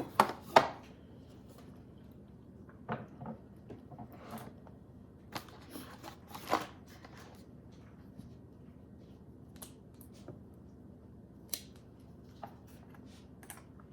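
Plastic dessert packaging being handled: scattered short clicks and crinkles, the loudest about half a second in.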